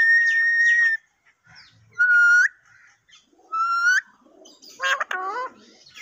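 Alexandrine parakeet whistling. A long steady whistle in the first second is followed by two short whistles that each rise at the end, about two and three and a half seconds in. Near the end comes a lower, talk-like call with several falling notes.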